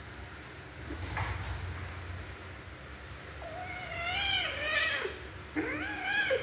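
Kitten meowing twice: first a long, wavering meow that drops away at the end, then a shorter meow that rises in pitch.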